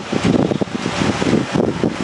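Wind buffeting the microphone: a loud, rough rush that swells and dips several times a second.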